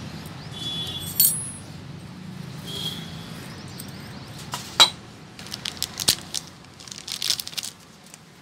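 Metal gearbox parts clinking as a washer, gear cluster and shaft are handled and set into an Ape auto-rickshaw gearbox casing: a few sharp metallic clinks with short rings, one about a second in, a louder one near the middle, and a quick flurry of small clicks toward the end.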